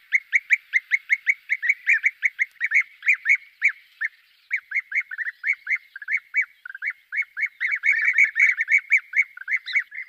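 Blue-cheeked bee-eater calling: a fast, steady run of short, clipped calls, about four or five a second, with a brief break about four seconds in.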